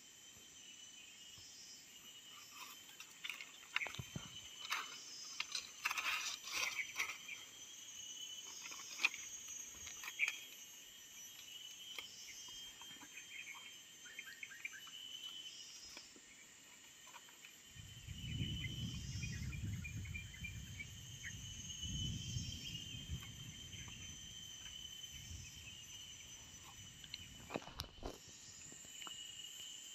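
Steady chorus of insects, a high shrill drone with a pulsing call repeating every couple of seconds. Scattered clicks and rustles of rope handling a few seconds in, a low rumble around two-thirds through, and a single knock near the end.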